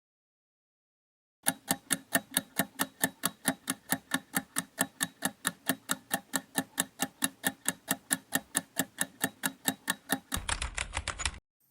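Clock-style ticking of a quiz countdown timer, about four even ticks a second, starting after about a second and a half of silence. Near the end the ticking stops and a short, denser rattling sound follows.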